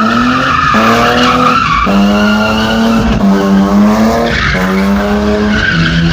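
Drift car's engine held at high revs, its note breaking off and picking up again about every second, with tyres screeching as the car slides.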